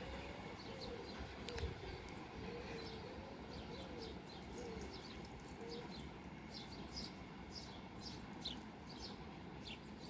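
Birdsong: a pigeon cooing in a repeated low phrase through the first half, then a small bird giving quick, falling high notes over and over for the rest.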